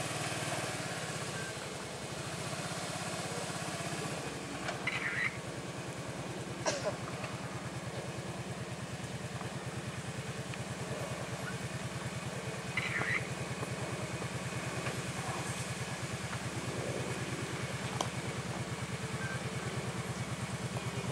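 Kawasaki KVF 750 quad's V-twin engine running steadily at low revs as the ATV rolls slowly down a steep dirt trail, with a few short sharp sounds over it.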